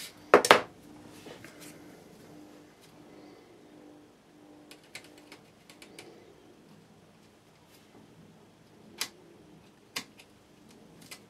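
Light clicks and taps of a soldering iron and long-nose pliers against a circuit board while ESC wires are soldered onto a quadcopter's power distribution board. Two loud knocks come about half a second in, then scattered single clicks.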